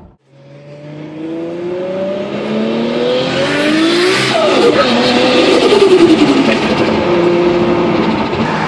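Car engine accelerating hard, heard from inside the cabin: the engine note climbs for about three seconds, then falls away over the next two, loudest about six seconds in.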